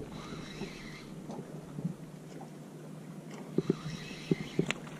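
Faint background with a few light knocks in quick succession in the second half, and thin high-pitched chirps near the start and again in the second half.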